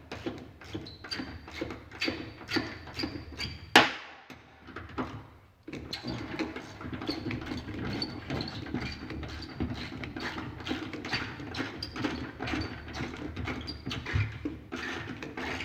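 Clicking and knocking of hand tools working the long transit screws out of the back of a new washing machine, with one sharp knock about four seconds in and a brief lull just after it.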